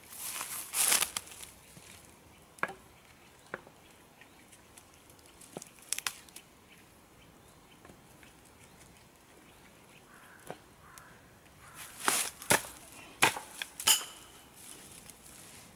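Dead branches being handled and stacked onto a wood pile: scattered wooden knocks and clacks with rustling of twigs and grass, and a run of louder sharp knocks near the end.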